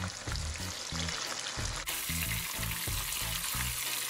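Red snapper heads deep-frying in hot oil, a steady sizzle and crackle of bubbling oil.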